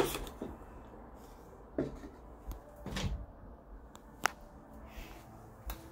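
A few scattered knocks and clicks of small toiletry items and bags being handled and set down, with quiet room sound between them. The first knock is the loudest.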